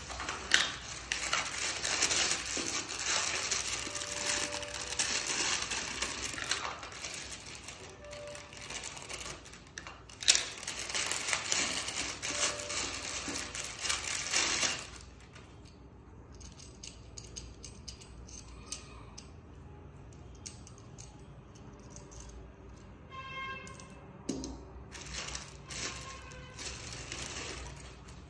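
Clear plastic packaging bags crinkling and tearing as metal stand parts are unwrapped, with sharp clinks of the metal pieces, loudest in the first half. Later there are quieter clicks and rattles as the metal spring arm is handled, with a short high squeak about two-thirds of the way through.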